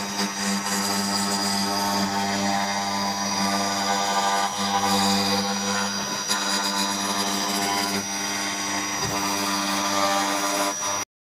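CNC router spindle running at speed while its end mill cuts a groove in plywood: a steady machine whine over a rushing cutting noise. It cuts off suddenly near the end.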